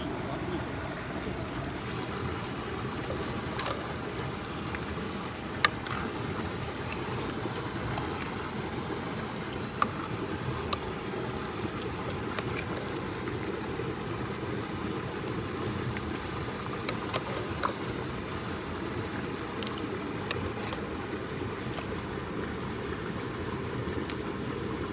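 Stream water rushing steadily, with a few sharp clicks here and there.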